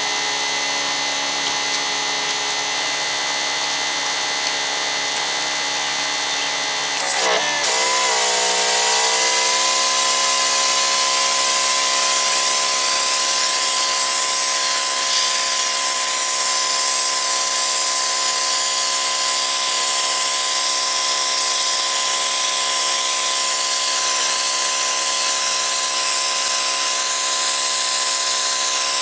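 Electric pressure washer motor running with a steady hum. About seven seconds in the spray starts: the motor's pitch dips and climbs back as the pump takes the load. A loud, even hiss from the jet of the wet-sandblasting nozzle then runs on over the hum.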